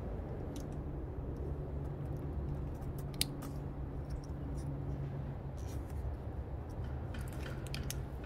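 Scattered light metallic clicks and clinks of snow chain tensioner hooks being clipped onto the cable chain on a tyre, the sharpest about three seconds in and a cluster near the end, over a steady low hum.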